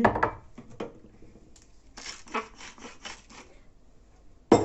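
Kitchen handling sounds while the minced chicken is salted: a knock at the start, a quick run of about seven scraping or shaking strokes about two seconds in, and a sharp knock near the end.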